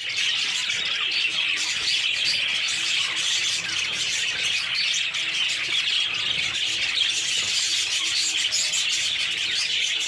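Many caged birds chirping and chattering at once: a steady, dense twittering with no pauses.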